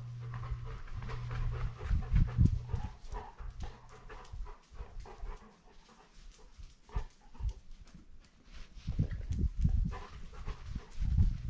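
Golden retriever trotting across hard floors, heard through a camera strapped to its back: claws clicking and paws thudding, with the dog panting. The heaviest low thuds come about two seconds in and again near the end.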